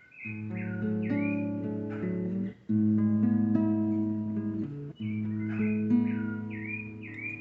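Acoustic guitar playing slow, ringing worship chords that change about every two and a half seconds. Over it a bird calls with short swooping notes, several in quick succession at the start and again near the end.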